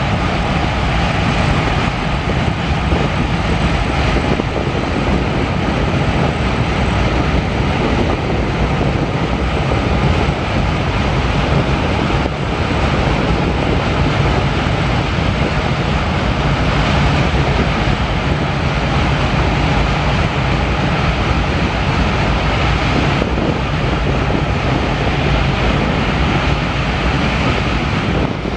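Metre-gauge train running: a loud, steady drone and rumble of engine and wheels.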